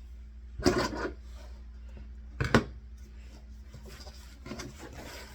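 Close handling noise on a tabletop: rustling and rubbing with two sharp knocks, about a second in and again at two and a half seconds.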